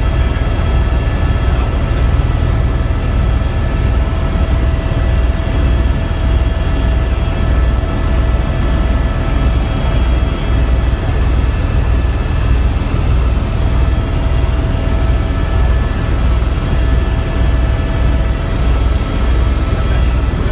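Tour helicopter in flight: a low, rhythmic rotor beat under steady whining engine tones, unchanging throughout.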